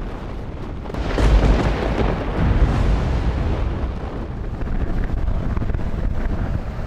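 A giant ocean wave breaking: a deep rumbling roar that swells suddenly about a second in, then a sustained rush of whitewater.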